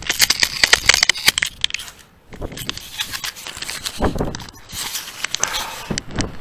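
Scratchy rubbing and crackling of a dog-mounted camera against the dog's fur and harness as the dog moves, dense at first, a short lull about two seconds in, then more crackle with a couple of dull bumps.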